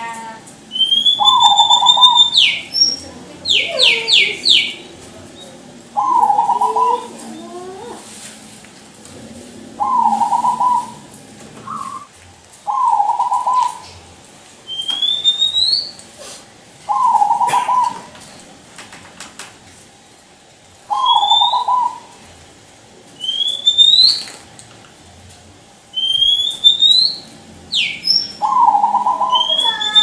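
Zebra dove (perkutut) cooing in short repeated phrases, one every two to four seconds. Other birds chirp higher, rising notes in between.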